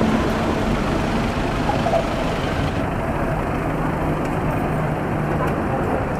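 Steady city street noise, mostly road traffic.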